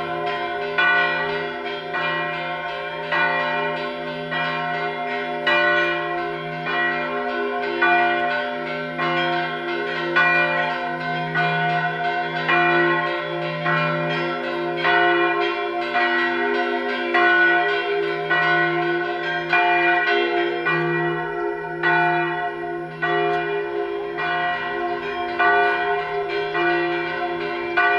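Church bells ringing a long, continuous peal from the village bell tower. Several bells at different pitches are struck again and again, roughly once a second, and their tones hum on between the strokes.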